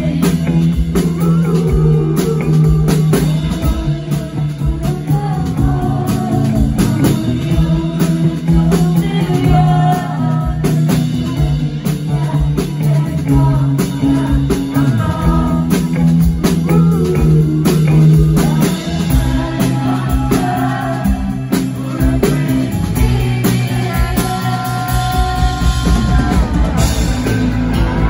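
Live rock band playing, with a woman singing lead over electric guitar, drums and keyboards.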